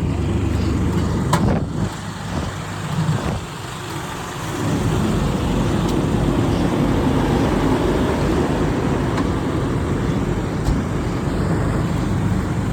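Fire engine's diesel engine running close by, a steady low rumble that grows louder about four and a half seconds in, with a single sharp click a little over a second in.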